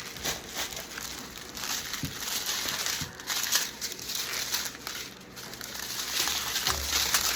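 Small plastic bags of diamond-painting drills being handled and sorted, crinkling steadily with many small crackles.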